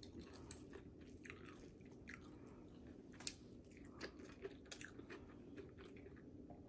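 Faint chewing: soft, irregular mouth clicks and crunches of someone eating, over a low room hum.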